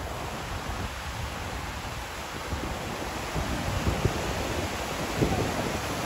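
Wind blowing on the microphone: a steady rushing hiss with low buffeting gusts that grow stronger about halfway through.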